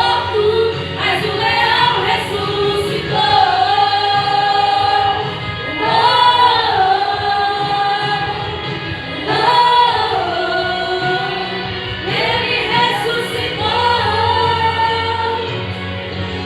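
Christian worship song: layered sung voices holding long notes and sliding between pitches, like a choir, over a steady low bass.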